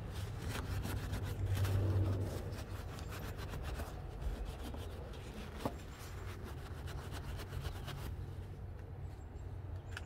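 Paper towel dampened with rubbing alcohol wiping a car's metal door lock striker and the door jamb around it: a run of quick scratchy rubbing strokes that die away about two seconds before the end, over a low steady hum.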